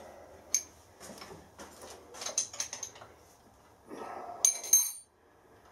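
Metal clinks and clicks of tools and fittings being handled on a turret milling machine head, with a short scraping rattle about four seconds in that ends in two sharp, ringing metallic clinks.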